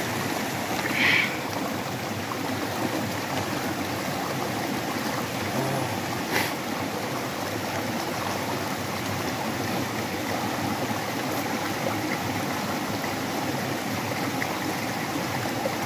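Mountain stream running in a steady rush of water. A brief high-pitched sound about a second in and a single click around six seconds stand out over it.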